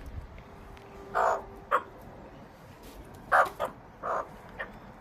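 Australian magpies giving a run of about five short, harsh squawks, the loudest about a second in: food-begging calls of birds waiting to be hand-fed.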